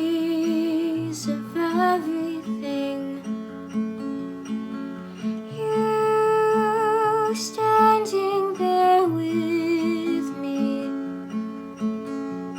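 A woman singing a slow, sad ballad with vibrato on her long held notes, over a steadily picked acoustic guitar.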